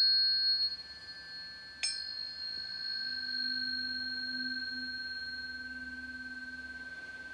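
Planetary tuning forks ringing: one already sounding with high, pure tones, a second struck about two seconds in, and a lower hum joining about three seconds in, all slowly fading away.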